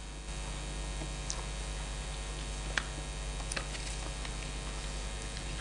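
Steady electrical mains hum, with a few faint clicks, the clearest about three seconds in.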